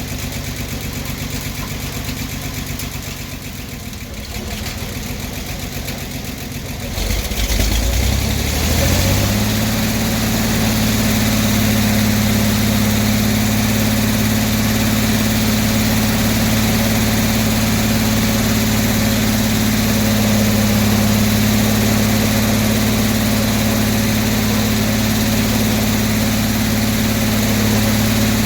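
Circular sawmill's engine running, then about seven seconds in it revs up over a couple of seconds and settles into a steady, louder run at speed, driving the 48-inch circular blade with its new inserted bits.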